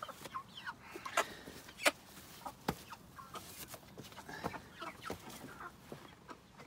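Meat chickens clucking in short, scattered calls while a bird is handled, with a few sharp knocks, the loudest about two seconds in.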